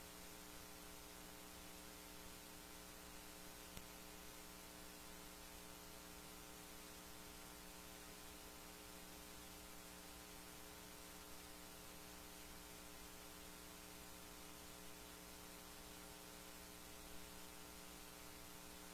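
Near silence: a faint, steady electrical mains hum with light hiss, and a couple of tiny clicks.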